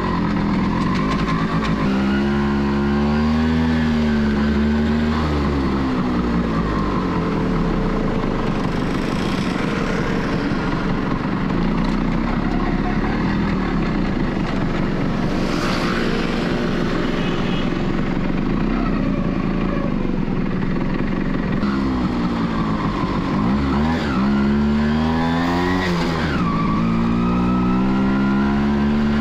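1989 Kawasaki B1's two-stroke single-cylinder engine pulling away and running up through the gears, its pitch climbing and dropping in steps a couple of seconds in and again near the end. In between, a steady rushing road noise while cruising.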